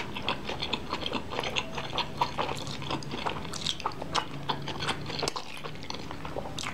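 Close-up mouth sounds of someone eating saucy black-bean instant noodles: a quick, irregular run of wet chewing smacks and slurps.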